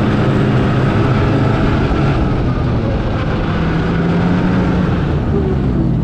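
Snowmobile engine running under way across the ice, heard from the rider's seat. Its pitch drops near the end as the sled slows.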